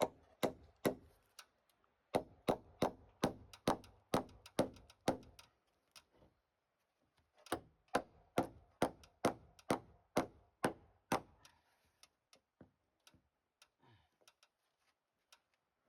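Hammer driving nails into timber framing: runs of steady blows, about three a second, with short pauses between the runs and only faint scattered taps near the end.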